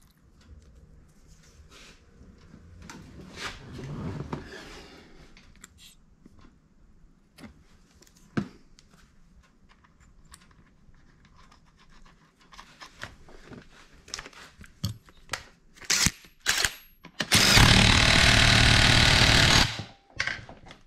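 Small metal clicks and clatter as a conical washer and the primary drive gear nut are fitted by hand onto a Yamaha Banshee crankshaft. Near the end a power tool runs for about two and a half seconds, the loudest sound, running the primary drive gear nut down.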